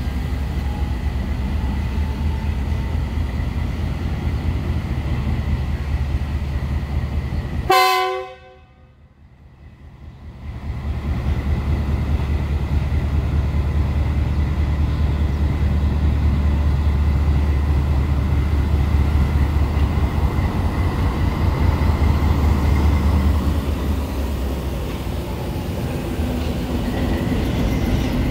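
GEU-20 (GE U20C) diesel-electric locomotive engine running with a steady low rumble, which grows louder for a stretch in the middle. About eight seconds in there is one short, chord-like blast of its air horn. Right after the horn the sound drops away sharply for a couple of seconds.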